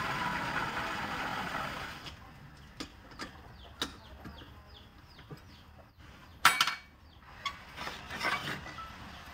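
Wood lathe turning a large rough log blank, a steady noise that drops away about two seconds in as the blank stops. Then a few sharp knocks, and two louder clattering impacts of tools against the stopped blank near the end.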